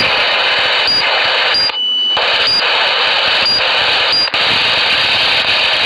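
Police walkie-talkie radio static: a loud, steady hiss, broken about two seconds in by a short high beep in a brief gap, then hissing again.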